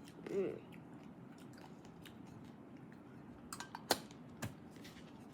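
Faint chewing of a small chocolate-centred candy, with a few sharp clicks and crunches around four seconds in. A brief hummed vocal sound comes about half a second in.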